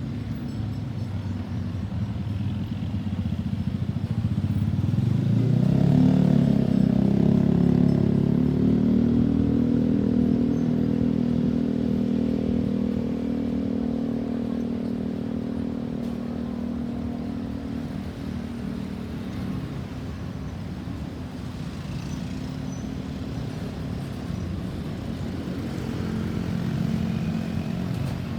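Road traffic: a motor vehicle's engine grows louder to a peak about six seconds in, holds a steady hum for several seconds, then slowly fades, and another vehicle comes up near the end. No siren is sounding.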